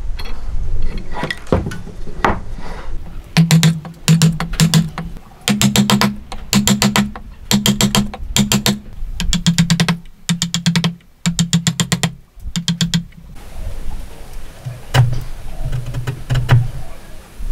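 A chisel being struck with a hammer, chopping into a wooden beam: a steady run of sharp knocks in quick clusters about twice a second, each with a short low ring. It starts about three seconds in and stops about thirteen seconds in, with scattered lighter knocks before and after.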